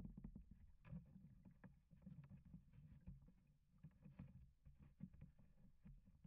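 Faint sounds of a plastic kayak moving on calm water: a low rumble with irregular small knocks and clicks from the hull.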